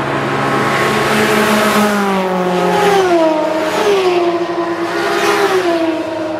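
Several race cars passing one after another at high speed. Each engine note drops in pitch as the car goes by.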